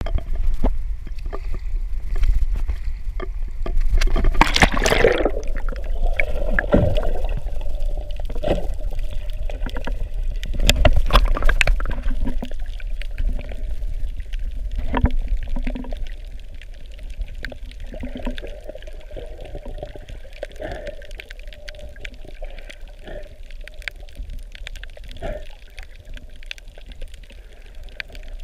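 Water sloshing and gurgling heard through a camera held underwater, muffled with a constant deep rumble. A loud rush of water comes about four to five seconds in, short clicks are scattered throughout, and the water sounds grow quieter from about sixteen seconds on.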